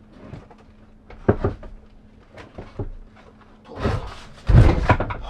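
Knocks and clatter of equipment being handled by hand: a sharp knock about a second in, a few lighter taps, then a louder run of thumps and rattling near the end.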